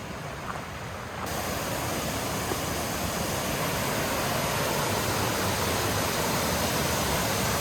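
Waterfall pouring: a steady rush of falling water, quieter for about the first second and then louder.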